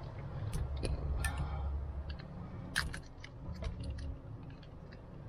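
Irregular small plastic clicks and ticks of a wiring-harness connector being handled as its black locking piece is worked loose, over a low hum that fades about two seconds in.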